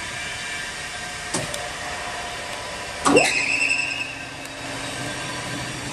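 Jones & Shipman 1078 cylindrical grinder being started from its push-button panel: a button click about a second and a half in, then about three seconds in a motor cuts in with a loud clunk and a quickly rising whine that settles into a steady hum, over the machine's steady background running noise.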